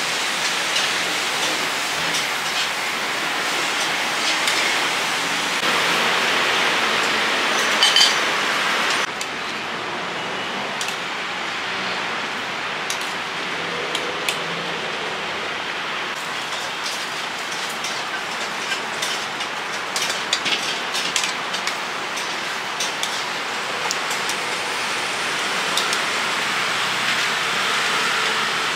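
Water boiling hard in a metal wok over a gas burner, a steady hiss and bubbling as greens blanch, with scattered clinks of a metal spatula and wire skimmer against the wok. The hiss drops abruptly about nine seconds in.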